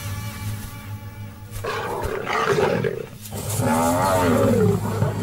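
Lions roaring twice, the first call rough and noisy about two seconds in, the second near four seconds rising and then falling in pitch, over background music with a steady low hum.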